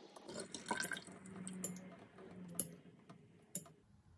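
Straight razor honed on a wet nephrite jade whetstone: wet scraping strokes back and forth, with a sharp click about once a second as the razor turns over on its spine. The strokes stop shortly before the end.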